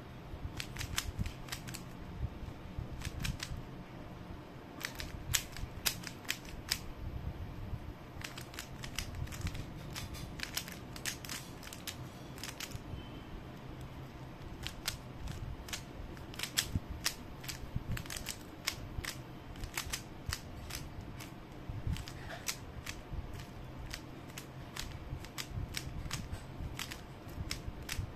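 A plastic 3x3 Rubik's-type puzzle cube being turned by hand. Its layers make rapid, irregular clicks and clacks as they snap round, coming in quick flurries with short pauses between.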